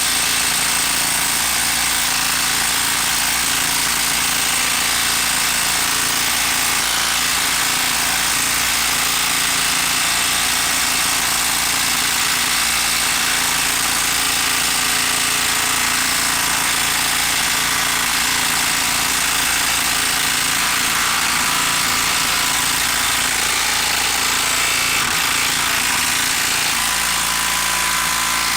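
Milwaukee 12 V brushed subcompact impact driver hammering continuously while driving a 4.5-inch lag screw. It is under sustained heavy load with no let-up.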